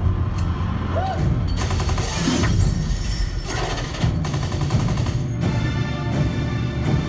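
Film soundtrack action scene: rapid bursts of gunfire, a couple of seconds in and again a few seconds later, over a dramatic music score.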